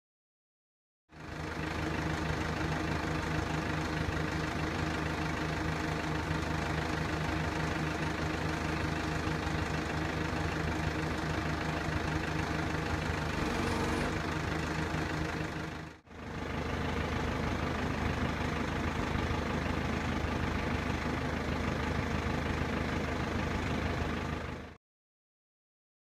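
Backhoe's diesel engine running steadily, its sound broken once by a brief dip partway through.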